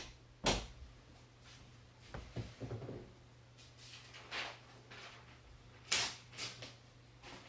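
A handful of separate knocks and clacks, as of objects being handled and set down, over a steady low hum. The sharpest come about half a second in and about six seconds in.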